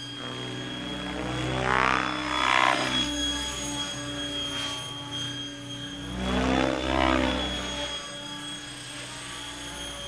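Electric Mikado Logo 600 RC helicopter in flight at low headspeed: a steady high-pitched motor whine under the whoosh of the rotor blades. The whoosh swells and fades twice as it passes close, about two seconds in and again around six to seven seconds.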